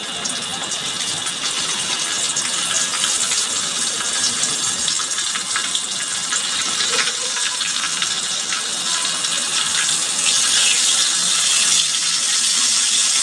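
Oil sizzling and crackling in a frying pan, a steady hiss with many small pops that grows a little louder about ten seconds in.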